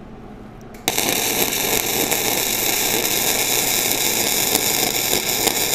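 Flux-core wire-feed welding arc striking about a second in, then a steady, even sizzle as a smooth bead is laid with the wire speed and voltage set about right.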